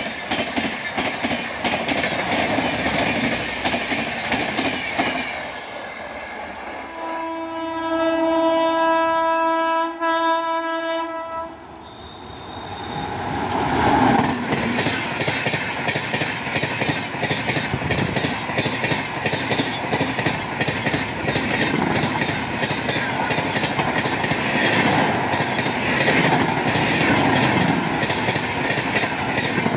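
Passenger coaches of an Indian express train clattering past at speed over the rails. About seven seconds in, an electric locomotive's horn sounds one long blast of about four seconds, and then a WAP-7-hauled express rushes past, its wheels clattering steadily.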